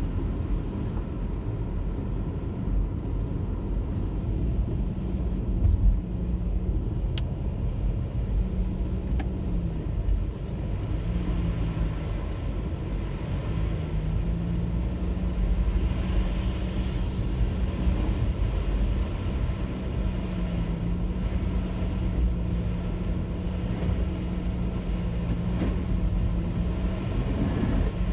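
Car driving: a steady low rumble of engine and road noise, the engine note dropping about ten seconds in and picking up again a few seconds later. A brief thump about six seconds in.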